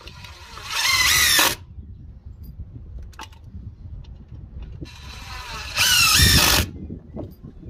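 DeWalt 18V brushless impact driver driving wood screws through a steel angle bracket into timber: two short runs, each under a second after a softer start, a wavering high whine over the rattle of the driver.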